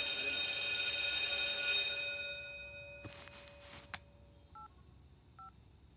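An electric bell rings steadily and cuts off about two seconds in. Later, two short two-tone beeps about a second apart: mobile phone keypad dial tones as a number is dialled.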